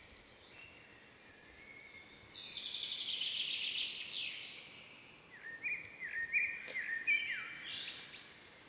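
Birds singing: a trill of rapid repeated notes about two seconds in, then a string of short chirps near the end.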